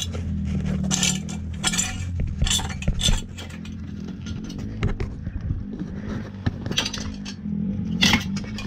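Light metallic clinks and rattles, many short sharp ones, over a low steady hum that drops about three seconds in.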